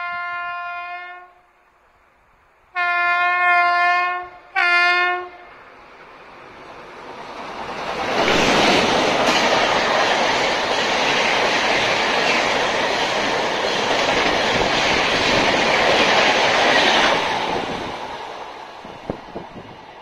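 An approaching express train's horn sounds three times: the tail of one blast, a longer blast about three seconds in and a short one just after. Then a high-speed LHB passenger train passes close by for about ten seconds, a loud steady rush of wheels on rail and coaches, which fades away near the end.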